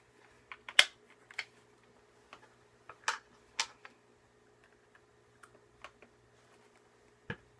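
Irregular light clicks and taps from handling a drill, a screw and a piece of wood, about a dozen spread unevenly, with the drill motor not running.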